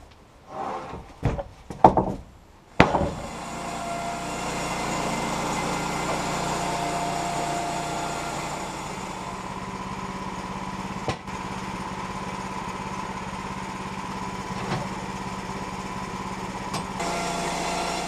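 A few sharp wooden knocks, then the gas engine of a Woodland Mills bandsaw sawmill starts about three seconds in and runs steadily as the band blade resaws a board.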